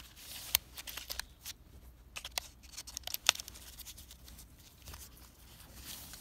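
Paper-wrapped penny rolls being rummaged through on cloth: light rustling and crinkling with scattered small clicks and taps.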